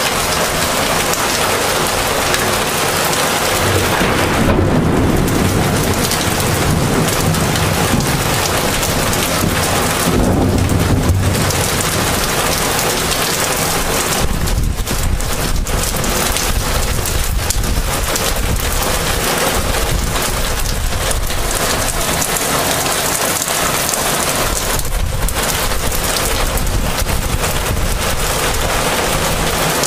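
Heavy rain falling steadily, with thunder rumbling twice, about four seconds in and again around ten seconds in.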